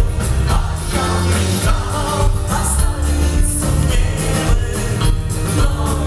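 Live rock-and-roll band playing with singing over a steady beat of bass and drums, recorded at a concert.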